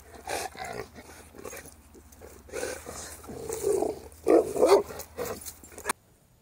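A dog on a leash growling and grunting in a string of short bursts, loudest about two thirds of the way through, cutting off suddenly near the end.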